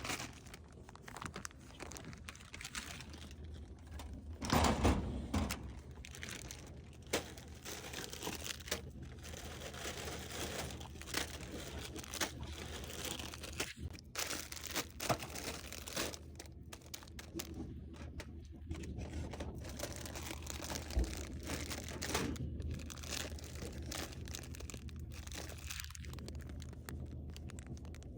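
Snack packaging crinkling and rustling as it is handled, with scattered sharp crackles and knocks and a louder rustle about five seconds in.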